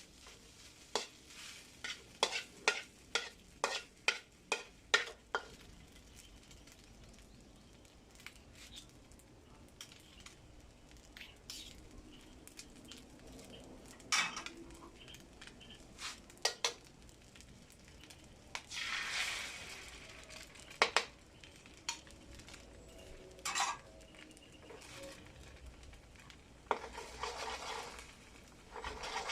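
A spatula clinking and scraping against a frying pan while rice is stir-fried, with sizzling. It opens with a quick run of about ten sharp taps, then goes on with scattered clinks and two short hissing bursts later on.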